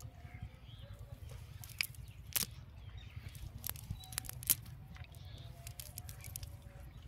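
A cast net being handled and picked through on the ground: scattered sharp clicks and snaps, the loudest about two and a half and four and a half seconds in, over a steady low rumble.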